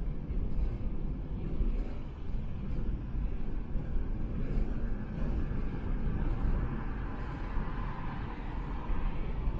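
Steady road noise of a car driving at expressway speed: tyres on asphalt and engine rumble, with no sudden events.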